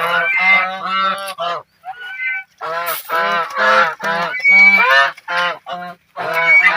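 Geese honking: a rapid run of short, nasal calls in quick succession, broken by a few brief pauses.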